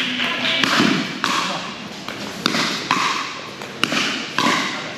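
Pickleball rally: paddles striking a plastic pickleball, about six sharp pops at uneven spacing as the ball goes back and forth.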